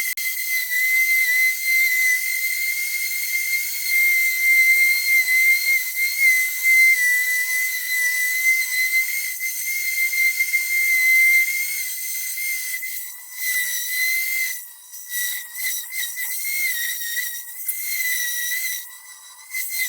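Orbital sander working the cast-iron table saw top with 80-grit paper, heard as a steady high-pitched whistling whine that wavers slightly and briefly drops out a few times near the end.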